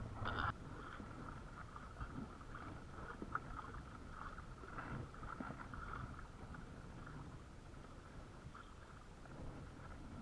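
Water lapping against a plastic fishing kayak's hull at a low level, with a few light knocks.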